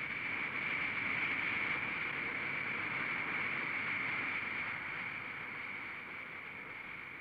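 Bertin Aerotrain's ducted rear propeller running, a steady high whine over a rushing air noise. It swells in the first second or so, then slowly fades as the vehicle moves away down its elevated track.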